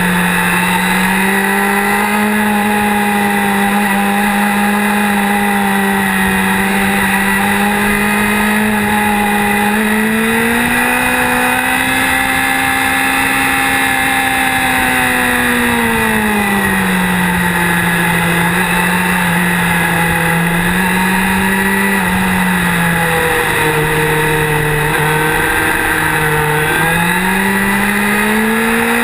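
Motorcycle engine under way, heard from the riding bike over a steady rush of wind, its pitch climbing a little after ten seconds, dropping back around sixteen seconds, dipping again in the mid-twenties and rising near the end as the rider works the throttle through the curves.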